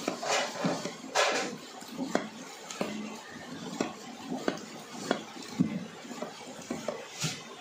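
Long-handled metal ladle knocking and scraping against a large aluminium pot while mutton and intestines are stirred in the gravy: an irregular series of clanks, roughly one or two a second.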